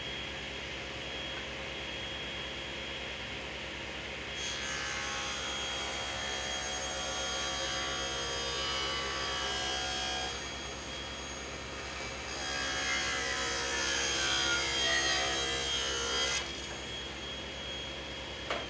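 Table saw running steadily as poplar boards are ripped to width along the fence. The cutting gets louder twice, once from about four seconds in for some six seconds and again a couple of seconds later for about four seconds.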